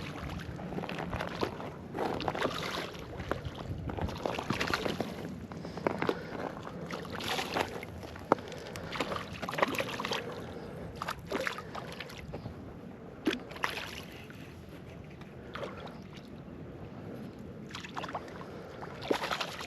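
Irregular water sloshing and splashing in surges, with scattered short sharp clicks, while a hooked smallmouth bass is played in on light spinning tackle.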